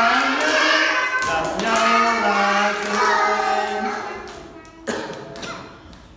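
Small children singing a Vietnamese children's song together with a man leading them, clapping along. The singing trails off after about four seconds, and a single knock follows.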